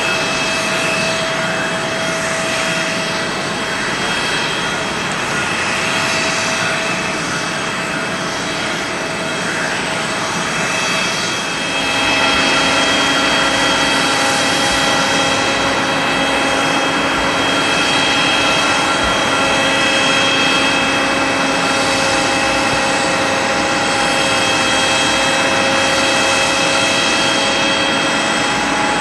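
Airliner jet turbines whining steadily, several held tones over a rushing hiss. About twelve seconds in the sound grows louder and settles onto a new set of pitches.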